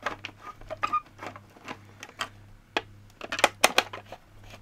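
Screwdriver working screws out of the plastic motor housing of a Hoover Aquamaster S4470 vacuum cleaner: a run of small, irregular clicks and ticks, busiest about three and a half seconds in.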